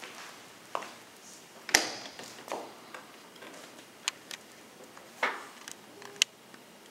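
Irregular sharp clicks and knocks as a kitchen dishwasher is opened and handled, its door and rack knocking. The loudest is a single thump a little under two seconds in.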